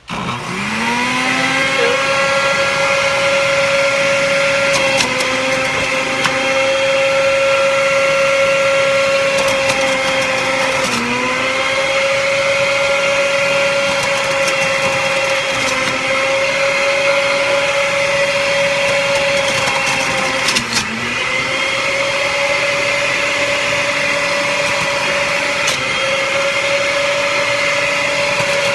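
Centrifugal juicer motor switched on, spinning up to speed in about a second, then running steadily on high. Its whine sags in pitch for a moment every several seconds as produce is pushed into the feed chute and loads the motor, with a few sharp clicks.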